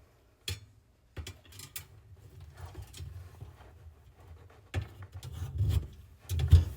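Metal parts of a chrome wire pull-out cabinet shelf being handled and fitted together: several sharp clicks and knocks, with rubbing and handling noise between them.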